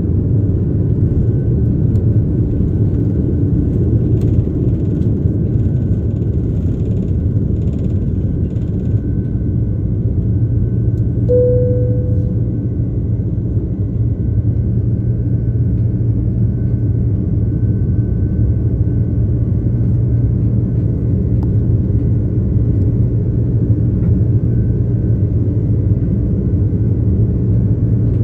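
Airliner cabin noise during the takeoff run and climb: a steady, loud low rumble of the engines at takeoff power. A single short ringing tone sounds about eleven seconds in and dies away.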